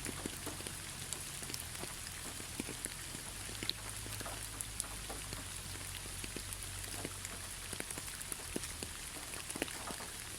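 Steady rain falling, an even hiss with many separate drops ticking sharply on a surface close by.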